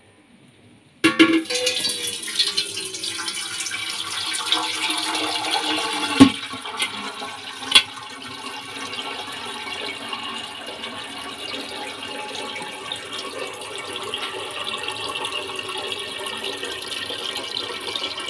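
Rice water pouring and splashing out of an upturned stainless-steel pot, through the gap at its plate lid, into a second steel pot below. It starts suddenly about a second in and goes on steadily, with two sharp metal knocks about six and eight seconds in.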